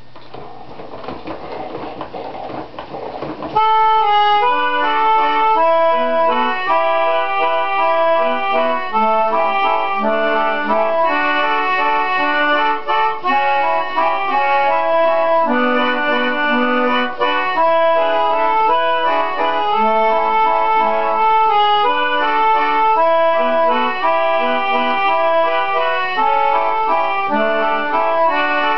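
Clariona organette, a hand-cranked reed organette, playing a tune from its paper music strip: reedy held notes in melody and chords. A rising hiss comes first, and the music starts about three and a half seconds in.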